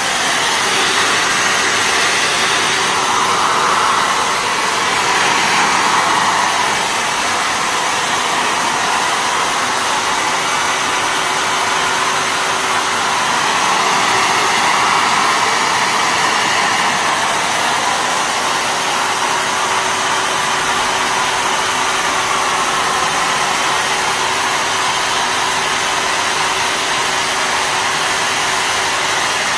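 Electric cold fogger's blower motor running steadily, hissing out a fine spray mist, with a faint steady hum under the rushing air.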